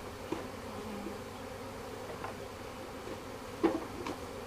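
A mass of honey bees, just shaken out of their shipping package, buzzing with a steady hum. A few light knocks are heard over it, the loudest about three and a half seconds in.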